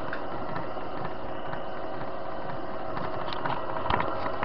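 TV-16 metal lathe running without cutting, its motor and spindle drive giving a steady quiet hum. A few short knocks near the end.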